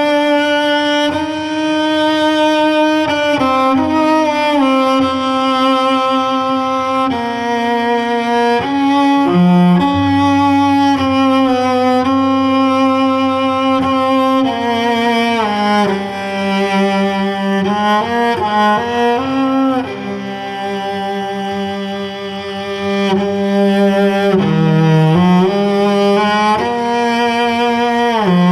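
Cello bowed in a slow melody of held notes, sliding between some of them, recorded through a Warm Audio WA-19 dynamic microphone.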